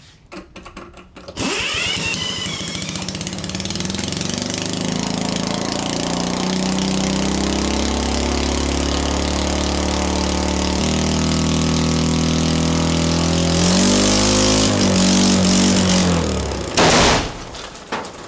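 A Briggs & Stratton single-cylinder small engine starts about a second and a half in and runs steadily, then rises and wavers in pitch as it is fed black powder through the carburetor. It stops, and a single loud bang follows as the engine blows up on the gunpowder.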